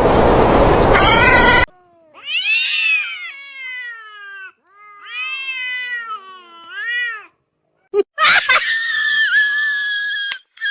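A loud burst of noise in the first moments, cut off abruptly. Then a cat yowling: several long, drawn-out cries that rise and fall in pitch. A higher, steadier cry follows near the end.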